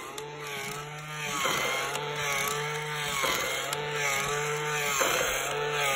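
Remote-control toy dragon's small geared electric motor running. Its whine swells and sags in a repeating cycle about every one and a half to two seconds as the mechanism works through each motion.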